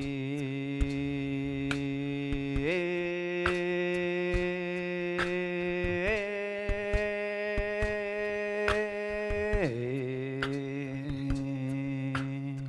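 Group vocal toning: voices hold one long sung tone that steps up in pitch twice, then drops back down near the end. Soft taps come about once a second.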